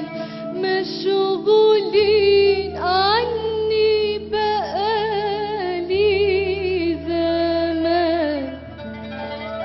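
Traditional Arabic music: a lead melody with wide vibrato and a quick upward glide about three seconds in, over steady low held notes, growing softer near the end.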